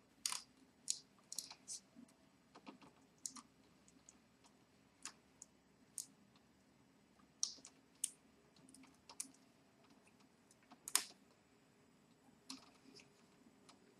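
Faint, irregular clicks and taps of fingers handling double-sided tape and plastic ink tubing against the printer's plastic parts, the sharpest one about eleven seconds in.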